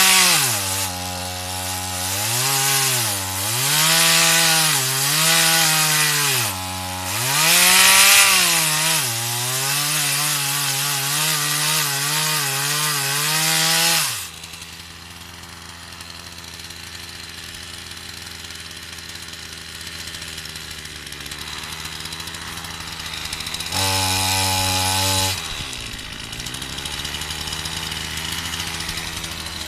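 Partner 340S two-stroke chainsaw running at high revs, its pitch sagging and recovering again and again as it cuts through wood. About halfway through it drops to a steady idle, with one short blip of the throttle near the end.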